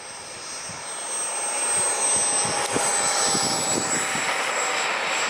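Homebuilt Wren MW54 model jet turbine running as the RC jet comes in to land, its high, thin whine growing louder as it nears and dropping a little in pitch about two to four seconds in as it passes.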